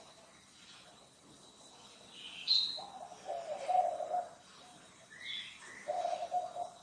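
Birds calling: two quick high chirps that sweep in pitch, and two spells of low, broken cooing.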